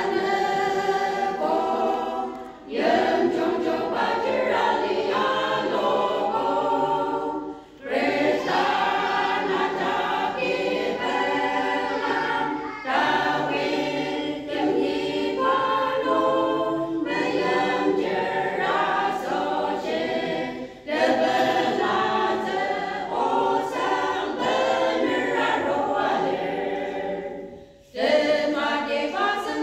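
A women's choir of about eight voices singing a cappella, with short breaks for breath between phrases.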